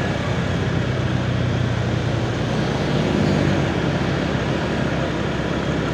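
Motorcycle engine running steadily on the move, with wind and road noise on the microphone and the surrounding city traffic.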